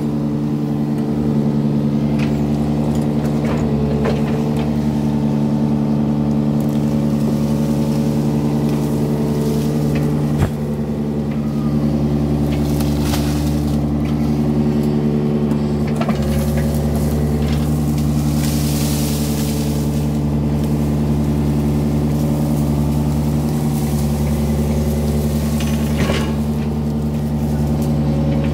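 Yanmar mini excavator's diesel engine running steadily under working load. A few sharp clunks cut through, the loudest about ten seconds in, with patches of hiss here and there.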